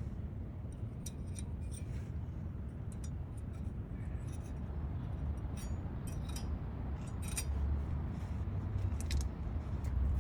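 Light metallic clicks and taps, scattered and irregular, as new brake pads are handled and fitted against the steel abutment clips of a disc-brake caliper bracket, over a low steady rumble.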